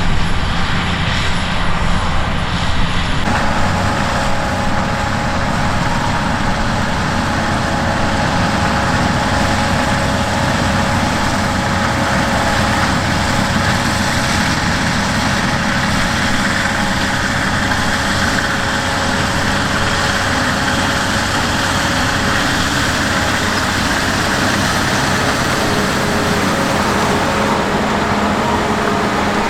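Large diesel harvest machinery running steadily under load, with a constant mechanical whine over the engine noise. The sound changes abruptly about three seconds in.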